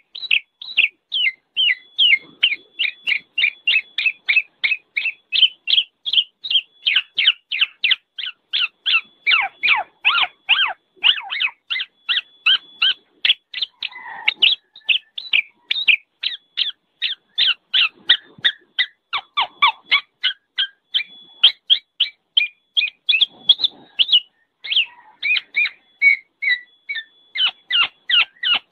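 Black-naped oriole (kepodang) calling in a fast, unbroken series of short notes, about three a second, with a brief pause about 24 seconds in.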